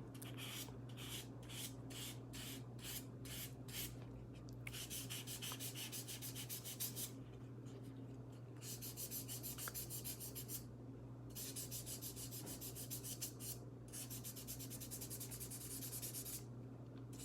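1000-grit wet sandpaper rubbed back and forth on a Rolex Explorer's steel bracelet clasp, sanding out scratches. Short strokes at first, a little over two a second, then faster runs of a few seconds each with brief pauses between them, over a steady low hum.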